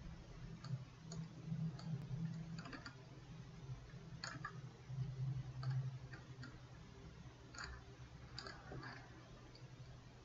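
A few faint, irregularly spaced computer mouse clicks over a low steady hum.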